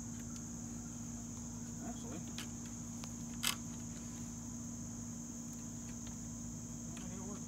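Steady high-pitched chorus of crickets over a low steady hum, with one sharp click about three and a half seconds in.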